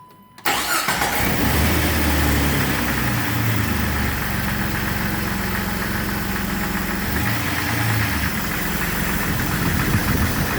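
Jeep Wrangler TJ's 4.0-litre straight-six engine starting up about half a second in and settling into a steady idle on a freshly replaced set of spark plugs.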